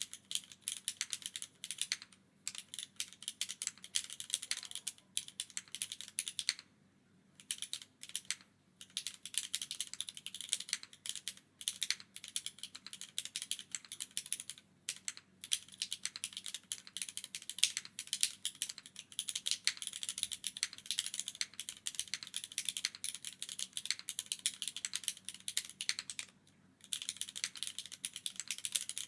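Continuous fast typing on a mechanical keyboard with Cherry HG Black linear switches, GMK keycaps and an aluminium plate in a gasket mount with no foam dampening, rapid clacky keystrokes with a few short pauses.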